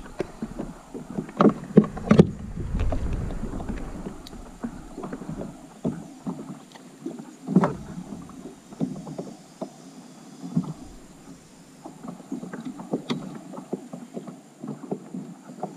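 Knocks and rustling of a landing net and tackle being handled in a plastic fishing kayak, irregular and uneven. A cluster of louder knocks comes in the first few seconds and single knocks come later. Wind buffets the microphone at the start.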